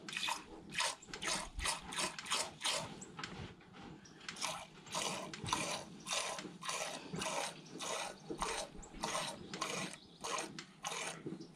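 Hand milking a mini Jersey cow: squirts of milk from one teat hiss into a small metal cup in a steady rhythm of about two to three strokes a second.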